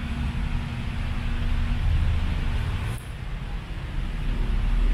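Steady low rumble of road traffic passing on a highway.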